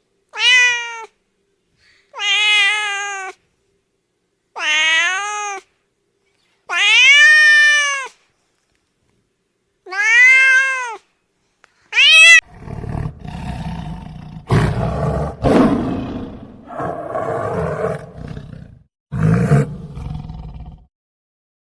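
Domestic cat meowing six times, each call about a second long and rising then falling in pitch. About halfway through, the meows give way to a harsh, noisy sound with no clear pitch that runs through the rest.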